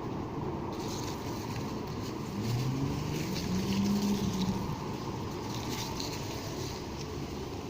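Steady low rumble of road traffic. About two and a half seconds in, one vehicle's engine rises in pitch as it speeds up, getting louder for a couple of seconds before fading back into the traffic. Leaves rustle in the wind above it.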